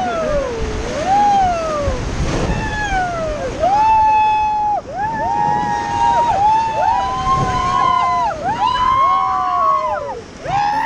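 Several people on a raft whooping and shouting long, high calls over rushing river water. The calls swoop up and down at first, then several voices hold long cries that overlap.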